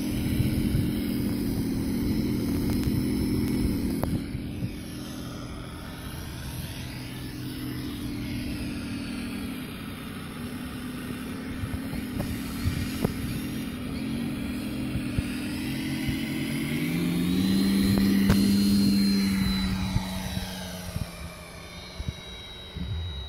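Radio-controlled P-47 model aircraft with a MrRCSound 4.1 onboard sound system playing a simulated aircraft piston engine through its speaker, over the plane's own propeller noise. It runs steadily on the ground, swells loudest on the takeoff run about three-quarters of the way through while a high whine rises, then fades as the plane climbs away.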